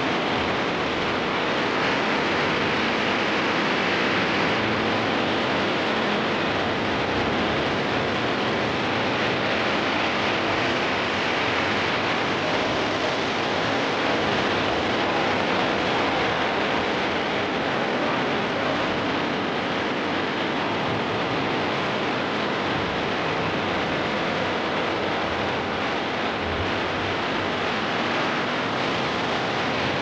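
Steady, even rushing noise with no breaks or changes.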